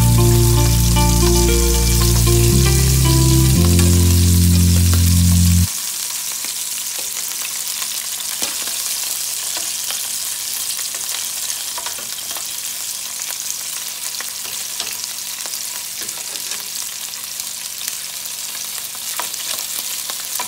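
Background music for about the first six seconds, cutting off suddenly. Then hot Italian sausages sizzling and crackling in a frying pan, a steady hiss with scattered pops.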